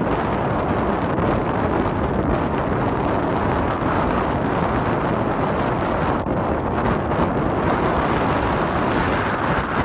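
Wind buffeting a phone's microphone: a loud, steady rush of wind noise.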